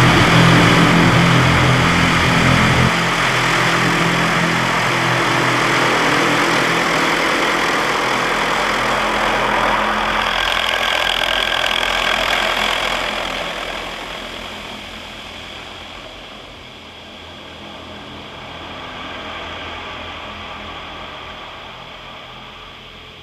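Automatic gantry car wash heard from inside the car: water jets spraying hard over the body and glass, over a machine hum. The hum cuts off about three seconds in, and the spray fades to a quieter hiss over the second half.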